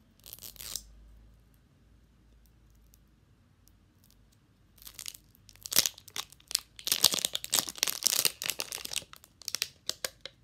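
Toy ball's printed wrapping paper being torn and peeled off, crinkling and crackling: a short rip just after the start, a few seconds of quiet, then a long run of tearing and crumpling from about five seconds in until just before the end.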